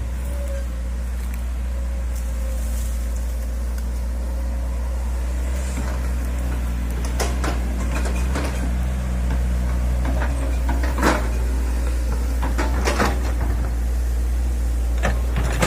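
Hitachi hydraulic excavator's diesel engine running steadily, with a series of sharp knocks and scrapes from about seven seconds in as the machine works.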